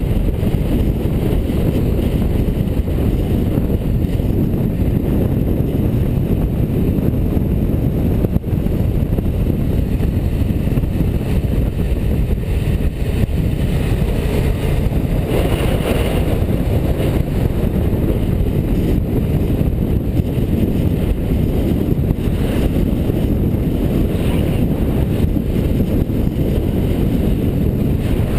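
Steady rush of wind and road noise on a vehicle-mounted action camera at road speed, heavy in the low end with no clear engine note.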